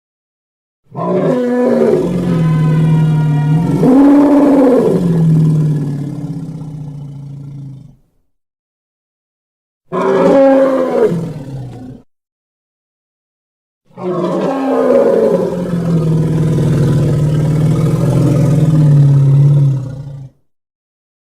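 Triceratops roar sound effects: three separate deep roars. The first is about seven seconds long with a pitch rise and fall in the middle, the second is a short one of about two seconds, and the third lasts about six seconds. Each ends in dead silence.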